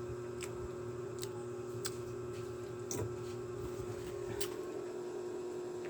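Steady electrical mains hum with a few faint, scattered clicks and small handling noises.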